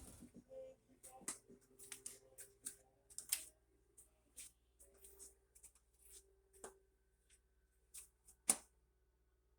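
Faint, scattered clicks and light handling noises over a faint steady hum, with one sharper click near the end.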